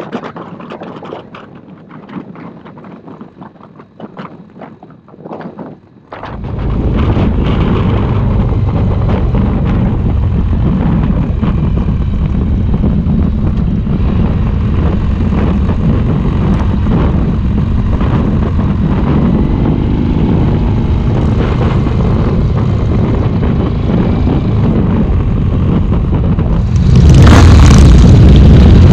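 Motorcycle riding at road speed, with engine rumble and wind noise on the handlebar-mounted microphone. For the first six seconds it is quieter and gusty, then it suddenly becomes much louder and steady, and grows louder again near the end.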